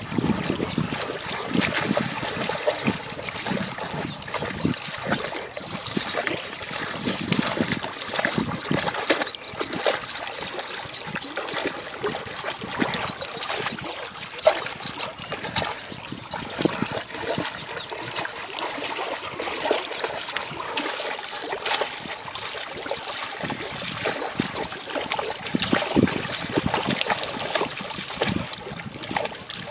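Rottweiler wading and splashing in shallow lake water, with many short, irregular splashes.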